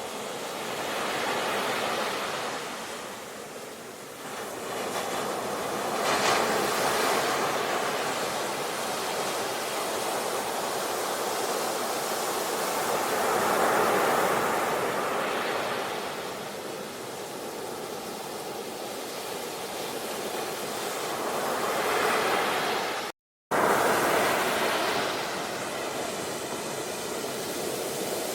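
Sea waves breaking and washing on a shore, a steady rush that swells and falls back every few seconds. Just before the last few seconds the sound cuts out completely for a split second, then resumes.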